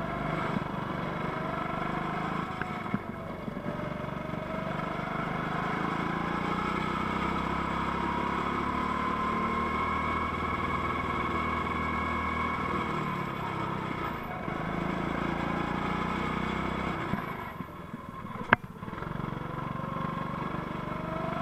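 Go-kart engine running under the driver, its pitch rising and falling as the throttle is worked through the corners. A single sharp knock, the loudest sound, comes about three seconds before the end.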